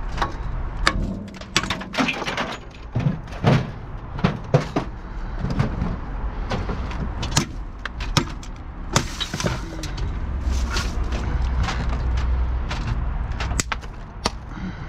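Irregular clanks, knocks and rattles of scrap metal and junk being picked through and tossed in a dumpster, over a low steady rumble.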